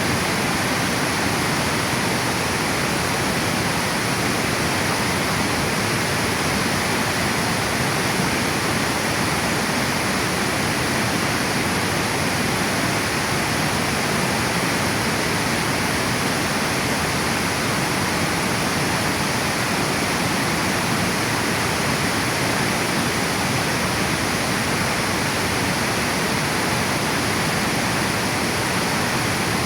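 Water pouring over a river dam: a steady, unbroken rush of falling water.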